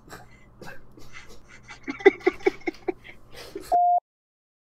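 A man's stifled, breathy laughter that breaks into a quick run of "ha-ha-ha" bursts about two seconds in, followed by a short electronic beep and then dead silence.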